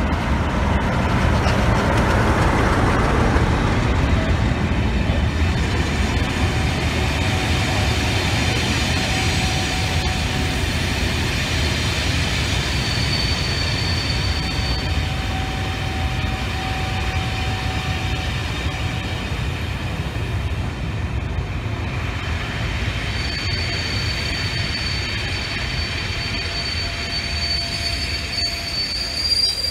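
A Class 47 diesel locomotive's Sulzer V12 engine passes close by, followed by the steady rumble and clatter of Pullman coaches rolling past on the rails. Thin squealing tones from the wheels come and go from about a third of the way in.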